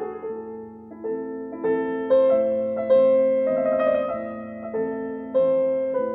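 Background music: a slow, gentle piano melody, a new note or chord struck about once a second, each ringing and fading.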